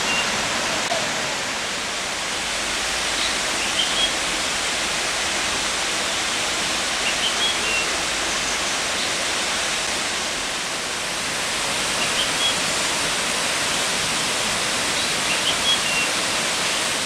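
Steady rush of falling water from the second cascade of Cheonjeyeon Waterfall, with short high-pitched notes a few times, every few seconds.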